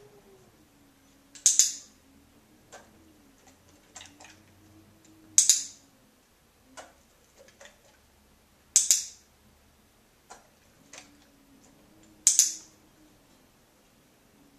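Hand-held dog-training clicker clicked four times, about every three and a half seconds, each click marking the dog's behaviour for a food reward. Fainter taps and ticks come between the clicks.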